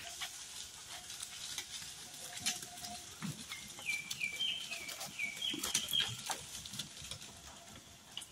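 Faint goat bleats among scattered rustling clicks, with a short run of high piping notes from about three and a half to six seconds in.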